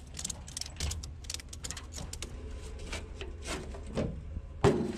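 A tie-down strap being put on a load: a run of quick metallic clicks and rattles from its buckle, with one louder clank near the end.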